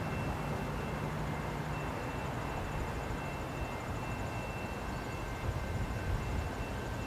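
Distant diesel freight locomotives approaching, heard as a steady low rumble.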